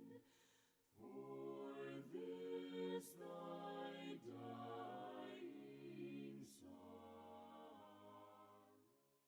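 A cappella choir singing a hymn softly, several voices holding chords that change about every second, with a few sharp 's' sounds. The singing fades out near the end.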